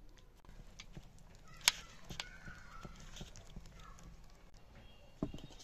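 A hand beats a thick paste of ground moong and chana dal in a steel bowl, whipping it until it turns creamy. The batter makes irregular wet slaps and squelches, with a sharp click about a second and a half in and a heavier thump near the end.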